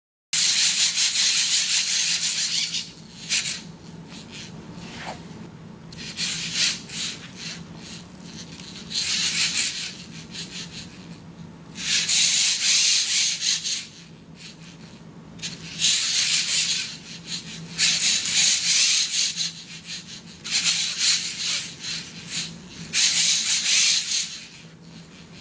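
Lego Mindstorms cable-winding motors and their gearing on a cable-driven parallel robot whirring in repeated rasping bursts of one to two seconds, about eight in all, over a steady low hum. The first burst comes as the robot goes unstable with its motor voltages saturated. The later bursts are the motors working as the end-effector is pushed by hand and its oscillations are damped.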